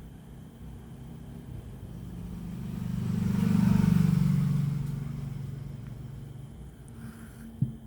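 A road vehicle passing: its engine and tyre sound swells up over about two seconds, peaks, then fades away. A faint click near the end.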